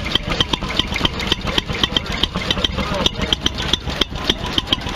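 Antique hit-and-miss engines running: a quick, uneven series of sharp clicks and pops over a steady low rumble.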